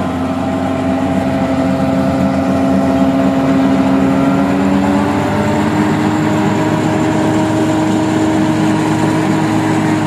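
Tractor engine running steadily at a loud, even pitch that rises slightly about halfway through.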